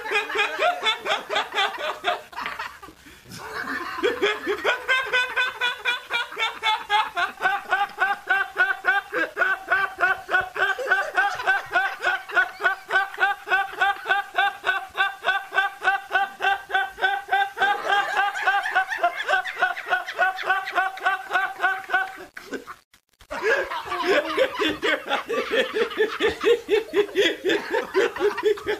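A man laughing hard and without stopping, in long fast runs of high, pitched 'ha' pulses, about six a second. It breaks off briefly about three seconds in and cuts out suddenly for a moment about three-quarters of the way through, then picks up again.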